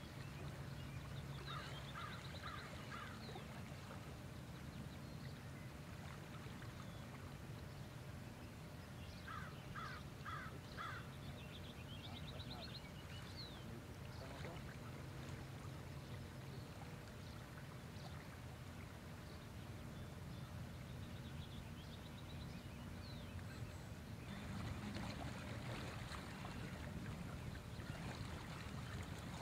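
Calm shoreline ambience with a steady low rumble. A bird calls in a quick run of four notes a couple of seconds in and again about ten seconds in, with fainter higher chirps between. The background hiss grows louder near the end.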